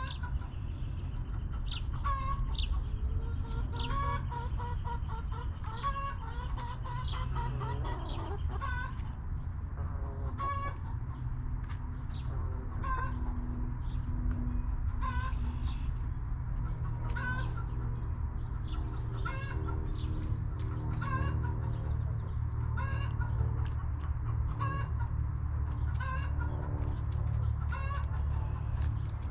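Backyard hens clucking in short calls about once a second, over a steady low rumble.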